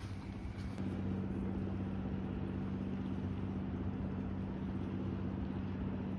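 A boat engine running with a steady low hum, which sets in about a second in.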